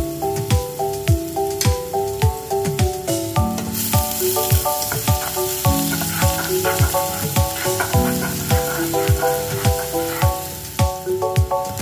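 Minced garlic and onion sizzling in hot oil in a pan. The sizzle grows loud about four seconds in and eases near the end, over background music with a steady beat.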